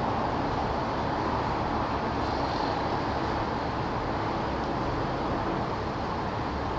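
Steady noise of distant city traffic, an even hum with no single vehicle standing out.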